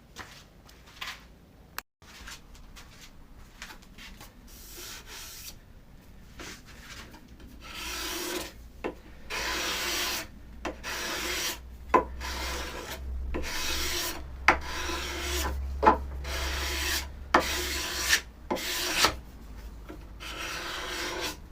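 Wood being worked by hand in repeated rasping strokes, faint at first and louder from about eight seconds in, with sharp knocks between some of the strokes.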